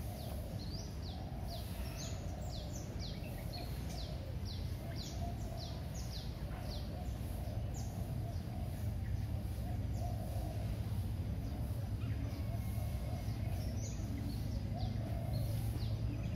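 Small birds chirping in quick series of short, downward-sliding chirps, a few a second. The chirps thin out midway and pick up again near the end, over a steady low background rumble.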